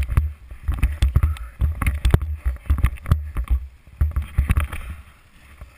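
Irregular low thumps and sharp knocks from the snow tube and the camera on it being jostled on packed snow. They come in uneven clusters and grow quieter near the end.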